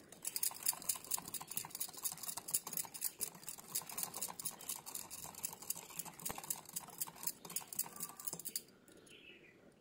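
Metal wire whisk beating runny mango cake batter in a bowl, its wires clicking quickly and evenly against the bowl's sides. The clicking stops about a second before the end.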